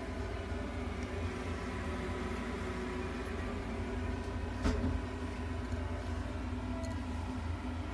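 Steady low machine hum with faint steady tones above it, and a single brief click a little past the middle.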